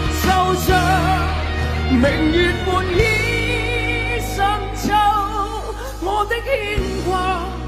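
Male singer performing a pop ballad live with band accompaniment, holding long notes with a wavering vibrato over a steady bass and drum hits.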